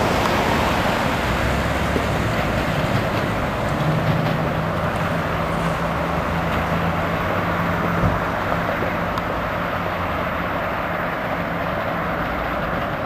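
Steady rumble of a passenger train rolling away behind steam locomotive Reading & Northern 425, with a low hum for a few seconds in the middle.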